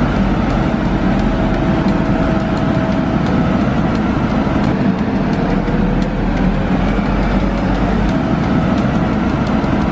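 Steady running noise of heavy machinery or a vehicle engine, with a constant low rumble and no pause.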